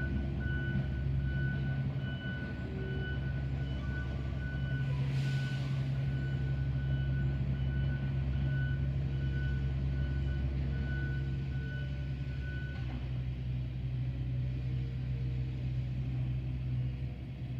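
A low steady hum and a regular series of short high electronic beeps that stops about thirteen seconds in, with a brief hiss about five seconds in. Distant Federal Signal 2001 outdoor warning sirens wail faintly underneath.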